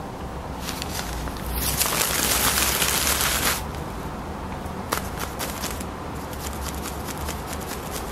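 Crumpled brown packing paper rustling and crackling, with one long loud rustle from about a second and a half to three and a half seconds in, then scattered crackles.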